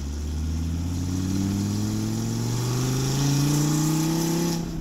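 Dodge Viper's V10 engine accelerating, its note climbing steadily in pitch through one gear, then dropping away sharply near the end.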